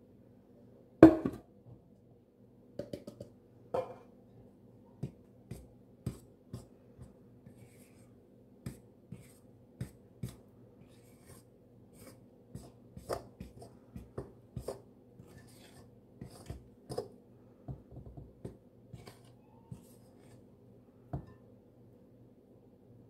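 A fork tapping and scraping against a ceramic mixing bowl while stirring flour into sticky bread dough: irregular clicks, one or two a second, with a louder knock about a second in. A faint steady hum runs underneath.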